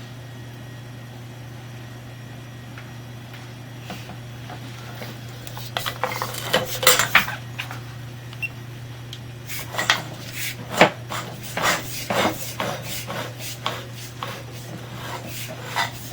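Irregular metallic clinking and clattering, a few knocks about six seconds in and a busier run of them from about ten seconds on, over a steady low electrical hum.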